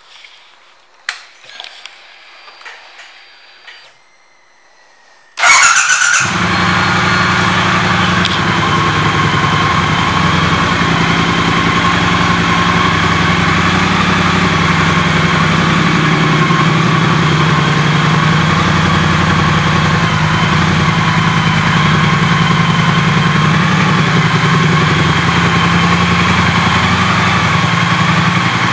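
A few faint clicks, then about five seconds in the 2018 Triumph Bonneville T120's 1200 cc parallel-twin engine starts with a brief flare and settles into a steady idle.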